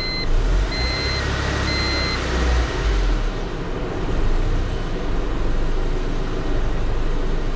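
Honda D16 four-cylinder engine running, checked for a knock that the owner thinks is rod knock, though it now seems much quieter to him. For the first two seconds, an electronic beep repeats about once a second.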